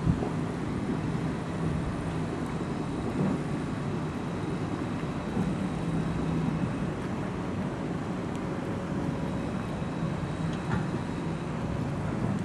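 Steady low rumble of an ICE train running along a brick railway viaduct, blended with city traffic noise.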